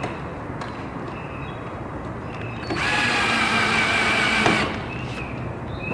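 Cordless drill-driver running for about two seconds, starting a little before halfway through and stopping suddenly, tightening a screw into the aluminium door frame.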